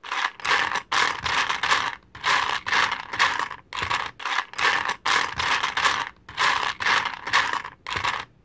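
Rattling and scraping of small hard pieces in repeated short bursts, roughly two a second, with brief gaps between them.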